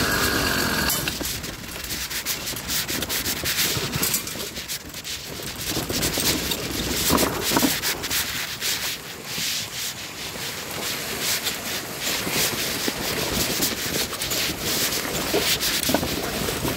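Phone microphone rubbing and scraping against trailer fabric, with irregular clicks and rattles as a child's bike trailer is towed over a bumpy dirt trail.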